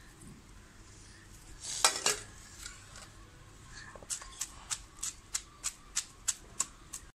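Wooden pestle pounding onions in a stone ground mortar: two louder sharp knocks about two seconds in, then a steady run of sharp knocks about three a second from about four seconds in.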